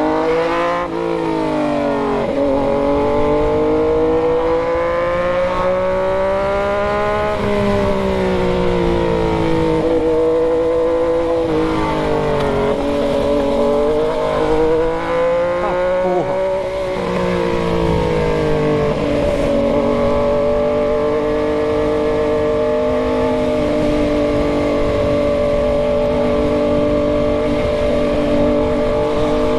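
Yamaha MT-09's three-cylinder engine running under way, its pitch rising and dropping several times with the throttle, then holding steady for the last third.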